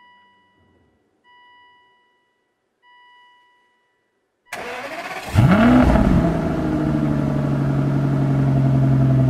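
Three short electronic beeps about a second and a half apart, then the starter of a 2005 Aston Martin DB9's 5.9-litre V12 cranks briefly and the engine catches about five seconds in with a quick rev that falls back to a steady idle.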